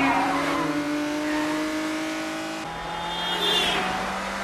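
BMW E34 sedan's engine revving hard under acceleration, its pitch climbing steadily, dropping at an upshift about two-thirds of the way through and climbing again. A brief tyre squeal comes just after the shift.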